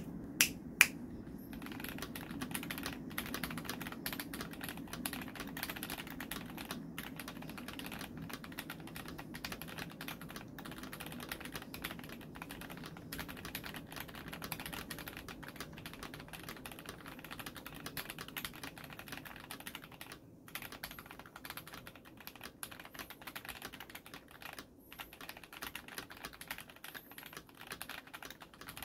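Fast, continuous typing on a KBD67 Lite R4 mechanical keyboard fitted with black crystal switches, the keystrokes running together into a dense clatter. A few sharper, louder key strikes come about a second in, and the typing breaks off briefly a couple of times in the second half.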